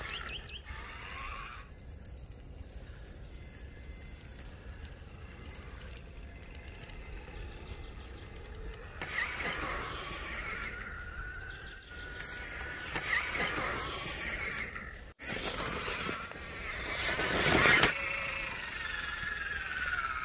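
Electric motor and drivetrain of an Axial Wraith radio-controlled rock crawler whining as it drives over dirt and stones, the pitch rising and falling with the throttle. The whine swells several times and is loudest in a burst near the end.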